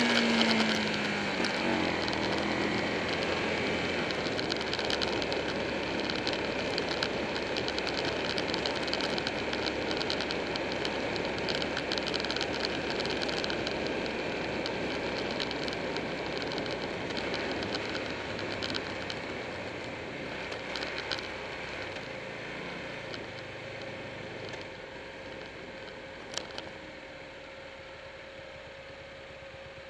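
Buell 1125R motorcycle with its V-twin engine running under wind rush while riding, the whole sound slowly fading as the bike slows. Near the end a steady engine hum comes through, and a single sharp click sounds.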